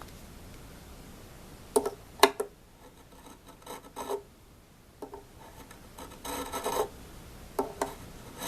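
Fret crowning file rasping in short strokes on a mandolin's metal fret, coming in separate bursts with pauses between, to round over a fret with a flat spot on top. Two sharp clicks about two seconds in.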